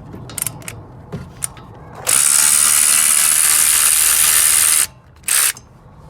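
Electric ratchet spinning a 13 mm brake caliper bolt off: a few light clicks, then the ratchet motor runs steadily for nearly three seconds and stops, followed by a brief second burst.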